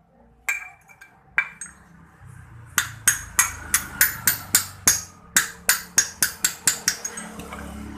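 A hammer tapping on metal scooter parts: two single clinks, then a quick run of about fifteen strikes, some three a second, while a part of the rear CVT pulley assembly is driven into place.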